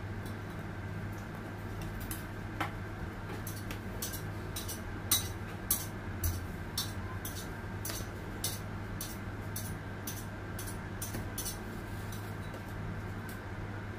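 Light, sharp ticks and clicks, irregular at about two or three a second, from a plastic cake scraper working cream icing around a cake turning on a turntable, over a steady low hum.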